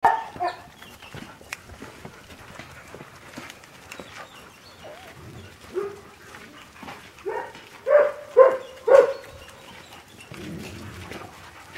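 Dogs barking in short single barks, with a run of four loud barks close together about seven to nine seconds in.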